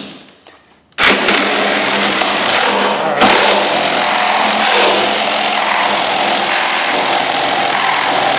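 Ridgid Gen5x R8642N 18-volt cordless reciprocating saw starts about a second in and cuts steadily through a board studded with nails, using a wood-with-nails blade.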